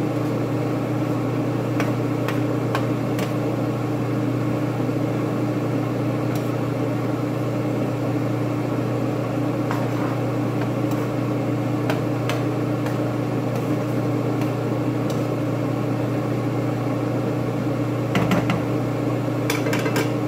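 Steady motor hum of a kitchen vent fan running, with a few light clicks of a utensil against the pan as the gravy is stirred, the loudest group near the end.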